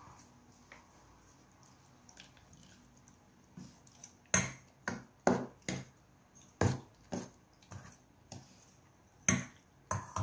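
A metal ladle knocks and scrapes against a stainless-steel bowl while stirring water into thick frying-batter flour. After a quiet start, a run of sharp, irregular clacks begins about four seconds in.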